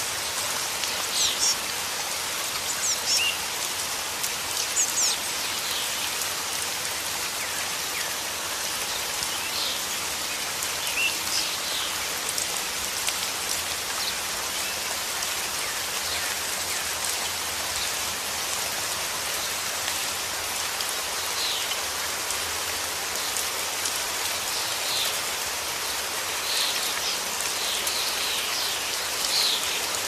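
Steady rain falling, with short high chirps now and then.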